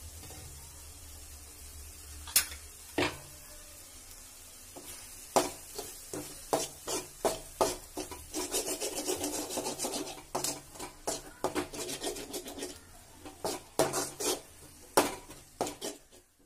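Metal spatula stirring a thick bitter gourd mixture in an aluminium kadai: two sharp knocks about two and three seconds in, then from about five seconds a quick run of scrapes and taps of metal on the pan.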